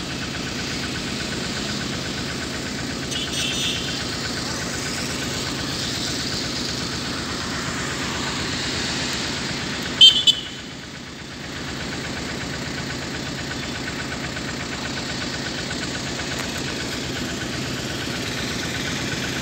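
Vehicle engine idling steadily, with one brief loud sharp sound about ten seconds in.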